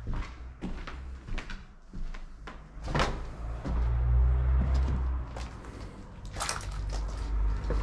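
Irregular knocks and thuds, the loudest about three seconds in and two more close together near the end, over a low rumble that sets in about halfway.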